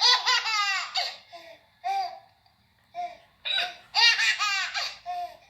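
High-pitched laughter in two bouts, near the start and again about four seconds in, with short single hiccup-like yelps between them.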